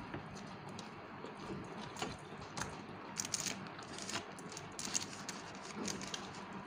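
Eating sounds: chewing with wet mouth clicks, and scattered light ticks and rustles as fingers pick food from an aluminium foil tray.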